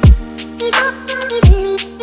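Background music in a hip-hop style: held synth chords over a deep bass kick that drops in pitch, struck at the start and again about one and a half seconds in, with lighter percussion hits between.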